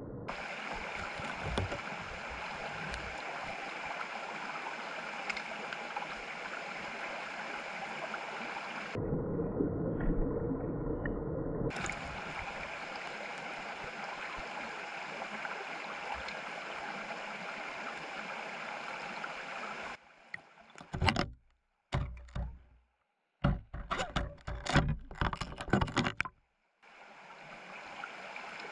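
Small mountain stream flowing with a steady rush of water. About nine seconds in, the sound turns muffled and lower for some three seconds, then clears again. Around twenty seconds in, it breaks into a run of loud, irregular knocks and splashes with short silent gaps, and the steady rush returns near the end.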